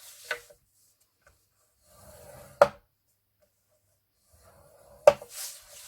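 Card stock being scored on a scoring board: short scratchy scrapes of a scoring tool drawn along the card, with three sharp clicks of the card or tool knocking against the board.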